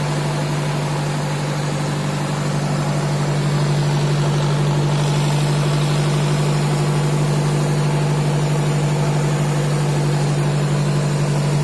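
Fishing boat's engine running steadily: a constant low hum that grows slightly louder about three seconds in.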